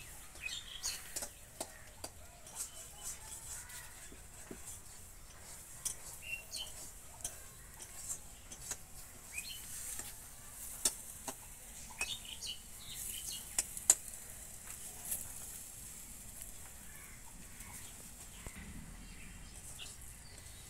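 Metal spatula scraping and knocking against a metal wok as frying taro greens are stirred: irregular clicks and taps, the sharpest about two thirds of the way through.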